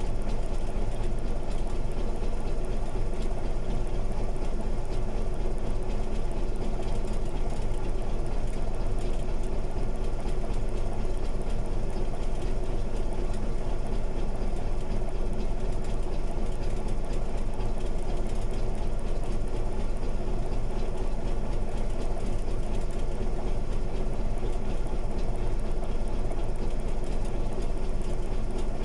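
Heavy diesel engine of a crawler bulldozer idling steadily, with no change in speed.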